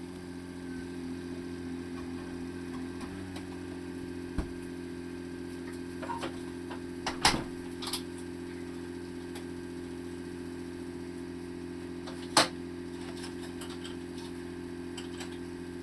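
Tohatsu four-stroke outboard motor idling steadily, running after sitting unused for about ten months. A few sharp clicks or knocks sound over it, the loudest about seven and twelve seconds in.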